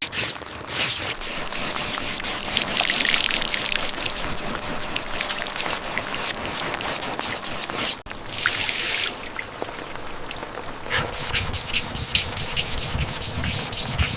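Workshop work noise: steady rubbing and hissing with many small clicks and knocks, breaking off suddenly once partway through and starting again.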